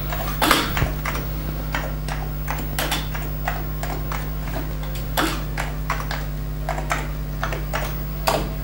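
Keystrokes on an Amiga 2000 keyboard, a run of irregularly spaced clicks as a shell command is typed, over a steady low hum.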